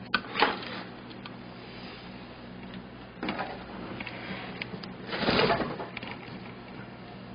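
A few short clicks and handling noises on a workbench, the loudest a brief rustle or rush a little after five seconds, over a steady low electrical hum.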